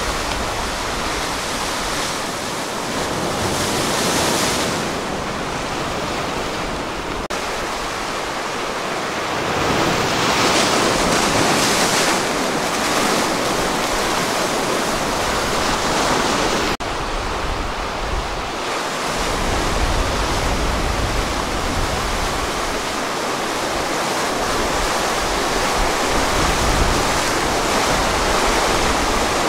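Ocean surf washing onto a sandy beach as a steady rushing noise that swells louder around ten to thirteen seconds in, with wind buffeting the microphone. The sound breaks off abruptly twice, where the footage is cut.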